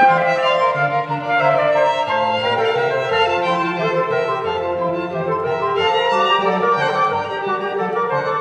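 Baroque chamber music: a transverse flute and a violin play interweaving melodic lines over a sustained continuo bass line.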